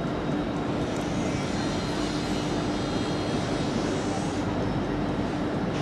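Train running with a steady rumble and a constant low hum that neither rises nor falls.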